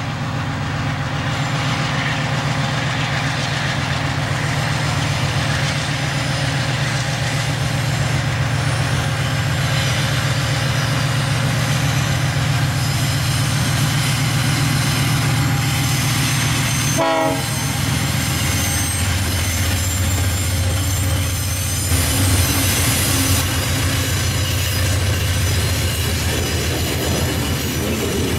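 Diesel-electric locomotives of a heavy freight train running steadily under power, a loud continuous low drone, with faint high wheel noise from the cars on the curve.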